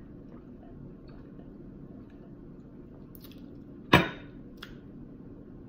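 Quiet drinking from a juice bottle, then about four seconds in the bottle is set down on a granite countertop with one sharp clunk, followed by a lighter tap.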